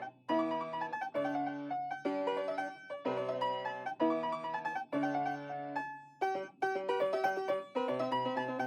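Piano music: chords and melody notes struck in short phrases about a second apart.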